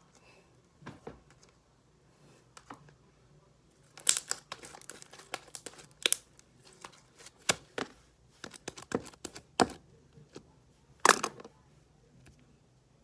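Homemade glue slime, activated with contact lens solution and baking soda, being kneaded, stretched and pressed by hand, giving irregular sticky clicks and snaps. They are sparse at first and come thick and fast from about four seconds in until shortly before the end.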